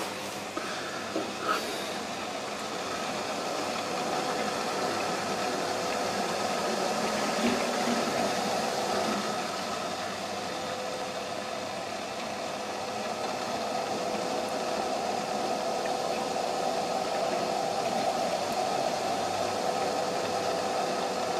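Potterton Promax gas boiler running just after a start from cold: a steady hum with a rough noise over it that swells a little twice. The engineer puts the noise down to air still in the heating system.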